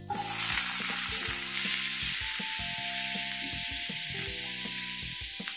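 Chopped onion sizzling in hot oil in a non-stick pan, stirred with a wooden spoon. The sizzle starts suddenly as the onion goes in, then fries steadily.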